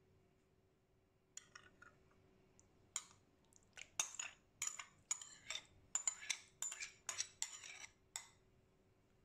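A metal spoon scooping thick yogurt out of a bowl into a blender jar, clinking and scraping against the rims in a quick run of sharp taps, about three a second, starting about three seconds in.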